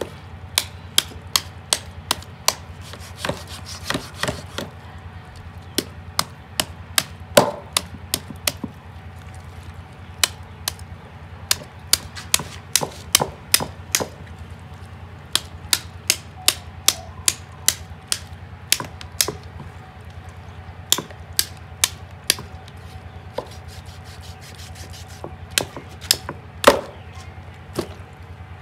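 Thin kitchen knife cutting through an antelope carcass's ribs and backbone: a long run of sharp, irregular cracks and clicks, often several a second with short pauses, as the blade snaps through bone and cartilage.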